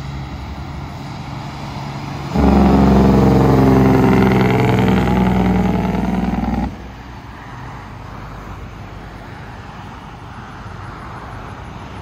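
Diesel semi truck pulling an empty lowboy trailer drives past close by. Its engine gets suddenly much louder about two seconds in, stays loud for about four seconds, then drops back to quieter road and tyre noise as it moves away and cars follow.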